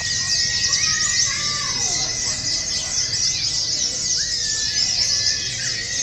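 White-eyes (pleci) singing together: a dense, fast chatter of high chirps and trills from many birds, with a thin held whistle underneath.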